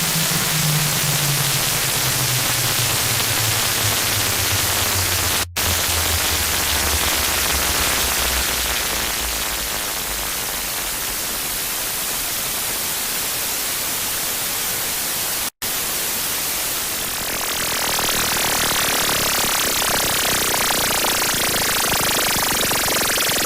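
Loud, harsh electronic noise: dense static hiss with a low drone that slides steadily downward in pitch over the first several seconds and then fades out. The static cuts out for an instant twice, and its grain changes near the end.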